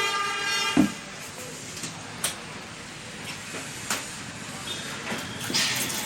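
A vehicle horn honks for just under a second at the start over steady traffic noise, followed by a few scattered sharp clicks and knocks.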